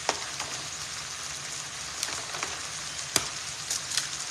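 Raw eggs being cracked on the rim of a bowl: several sharp cracks a second or so apart, the loudest right at the start and about three seconds in, over a steady sizzle of food frying in a pan.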